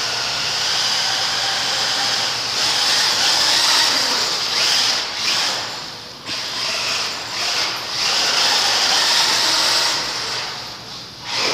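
Small electric radio-controlled car's motor and gears whining at a high pitch, swelling and fading as the throttle is worked, and easing off near the end.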